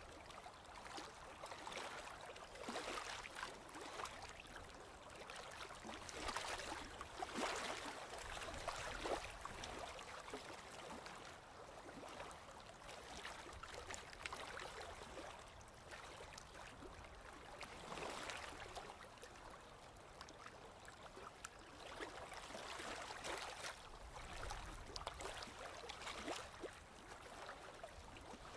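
Gentle sea waves washing and splashing against the shore, swelling and ebbing every few seconds with a fizz of small crackles.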